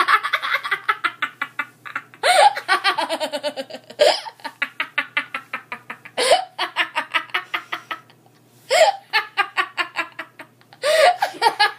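A young woman laughing hard and uncontrollably: long runs of rapid 'ha-ha' pulses, broken by short pauses every couple of seconds and one longer pause past the middle.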